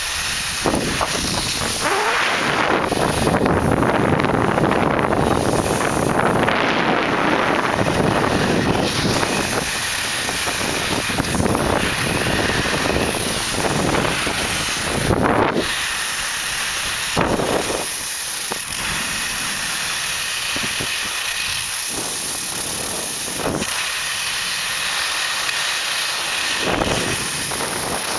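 Steady rushing hiss of skis sliding through soft spring snow, mixed with wind on the microphone, heavier in the first several seconds, with a few brief louder swishes later on.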